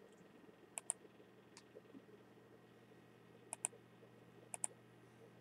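Computer mouse clicking faintly: three quick pairs of clicks and one single click, over a low steady hum.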